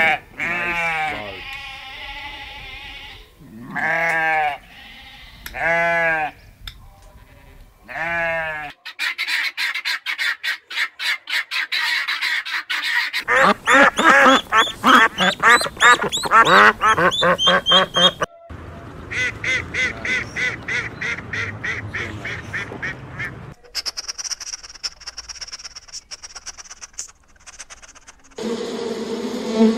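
Sheep bleating about four times, then a flock of white domestic geese honking and cackling in a dense, rapid chatter for about nine seconds, followed by another run of quicker calls. Near the end a thin high steady sound, then a steady low hum starts.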